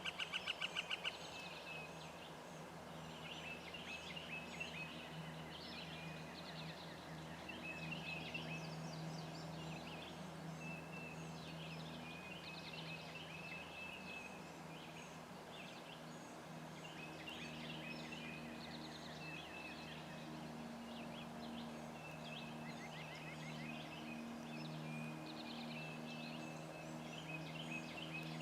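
Wild turkey giving a loud, rapid rattling call that ends about a second in, then songbirds chirping and trilling on and off throughout.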